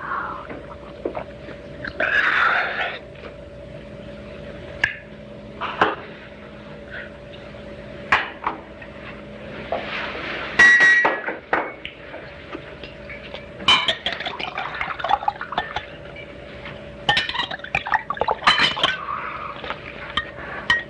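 Drinking glasses and bottles clinking and knocking on a table, with some liquid pouring, over a faint steady hum.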